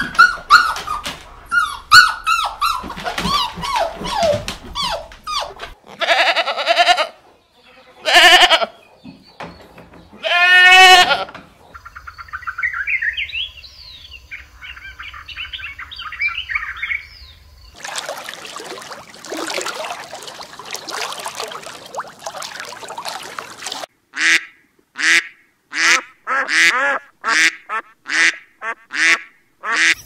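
A string of different animal calls cut together one after another, changing every few seconds, ending with a run of short repeated calls about one a second.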